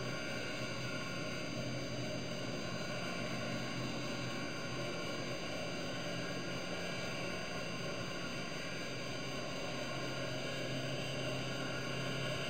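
Steady underwater drone: a low hum with an even hiss and a few fixed high tones, unchanging throughout.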